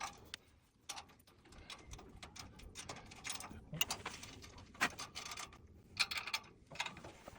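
Socket ratchet wrench clicking in short rapid runs with pauses between them, tightening the nuts on the U-bolts that clamp the mount to a square-tube bumper.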